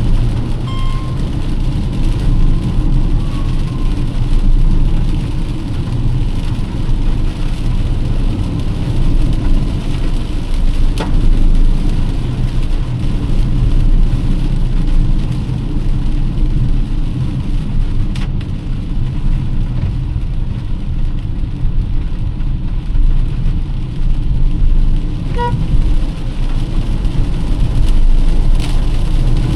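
Car driving through heavy rain: a steady low road and engine rumble under the hiss of rain. A couple of short high tones sound about a second in and again near the end.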